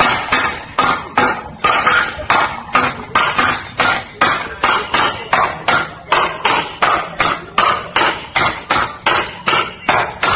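Four sledgehammers striking the top of a wooden stake in quick rotation, driving it into the ground: a steady run of sharp, evenly spaced blows, about two or three a second.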